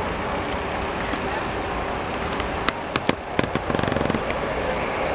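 Coach's diesel engine running as it pulls up close by, over steady road-traffic noise, with a short cluster of sharp clicks and knocks about three to four seconds in.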